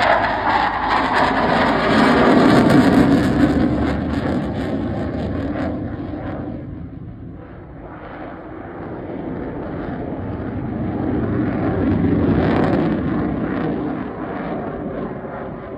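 Jet noise from a Eurofighter Typhoon's two Eurojet EJ200 engines as it flies its display. It is loudest in the first few seconds, dips about seven seconds in, and builds again to a second peak around twelve seconds.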